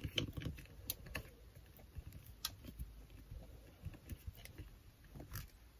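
Faint, irregular light taps and clicks of fingers pressing and rubbing a cling rubber stamp down onto paper to transfer the ink.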